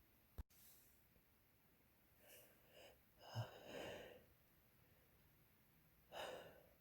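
Faint, wet sneezes and snorts: two small ones a little after two seconds in, the biggest and longest a little after three seconds, and another near the end. A single sharp click comes just under half a second in.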